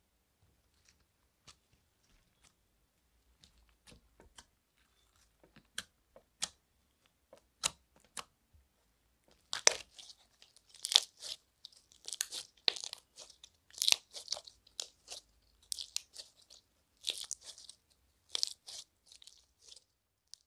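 Slime being squeezed and kneaded by hand: a few sharp sticky clicks at first, then dense runs of crackling pops from about halfway through.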